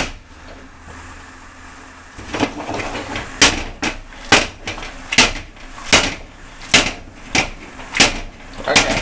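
Cooking pan and utensil knocking together as pasta in cream sauce is stirred and tossed, starting about two seconds in and repeating roughly once a second.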